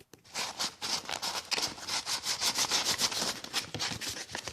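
Sandpaper being rubbed by hand over a fidget spinner in rapid back-and-forth strokes, scuffing off its old, thickly sprayed paint.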